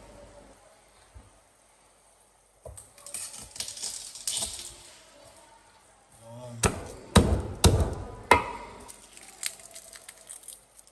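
Things being handled on a kitchen countertop: rustling and light clatter about three seconds in, then four sharp knocks about seven seconds in as a tin can is set down on the counter.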